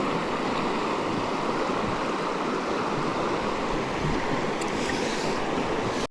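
Mountain stream water rushing in a steady, even wash that cuts off suddenly at the very end.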